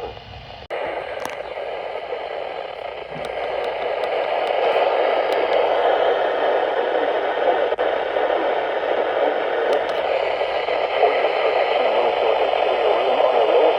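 Radio static: a steady hiss from a radio receiver, starting abruptly about a second in and growing louder over the next few seconds, with a few faint clicks.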